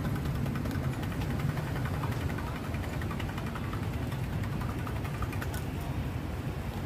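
Steady low rumble of road traffic with vehicle engines running, with a few faint clinks of a metal spoon against steel cups.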